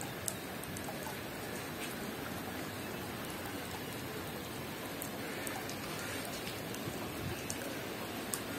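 Steady rain falling on a pond's water and surrounding paving, an even hiss with a few sharp drip ticks.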